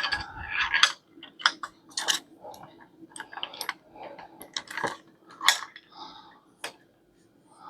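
Metal parts of a bike repair stand clinking and knocking as they are handled and fitted together: a quick, irregular run of sharp clicks and clanks.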